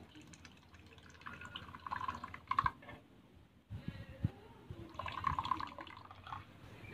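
Water from a homemade electric gallon-pump spout streaming into a plastic cup, in two spells with a short break between them, and a couple of knocks in the break.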